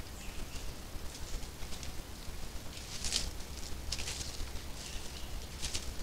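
Dry leaf litter crackling and rustling under animals' footsteps: a few separate short scuffs, clearest about halfway through and near the end. A steady low hum from the trail camera's microphone runs underneath.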